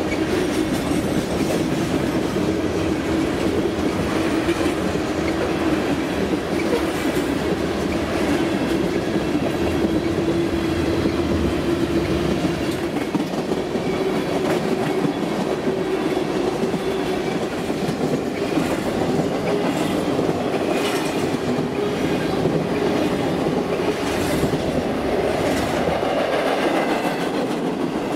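Freight train cars rolling past in a steady rumble, with wheels clacking over the rail joints.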